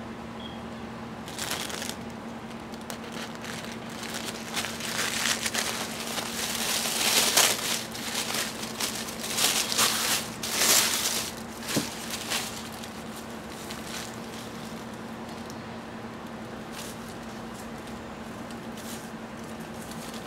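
Tissue paper crinkling and rustling as hands unwrap it, in irregular bursts that are loudest midway and die down after about twelve seconds to occasional faint rustles.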